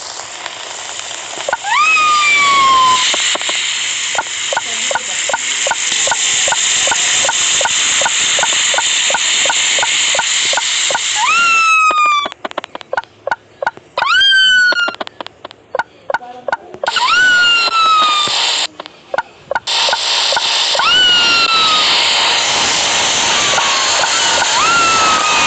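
Washing machine running: a motor whine that sweeps up sharply and slides back down, again and again every few seconds, over rushing water. For several seconds a steady clicking of about two or three a second runs beneath it, and the rush of water stops and starts in the middle.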